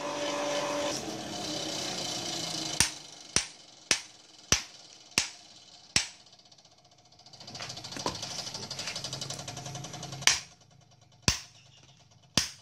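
Hand hammer striking iron held in tongs on an anvil while forging: about nine sharp, ringing blows. The first six come in a quick run about half a second apart, and after a pause three more follow about a second apart. A steady rushing noise sits under the opening seconds and returns midway.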